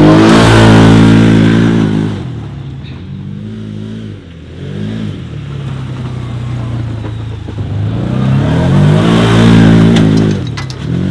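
Can-Am UTV engine revving hard as the side-by-side accelerates across dirt. It drops to a lower, steadier pitch after about two seconds, with a couple of short blips, then revs up loud again for a second hard run near the end.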